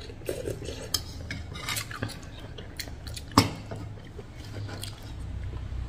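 Metal spoon and fork clinking against a ceramic soup bowl while eating, in scattered light clicks. One sharper knock about three and a half seconds in.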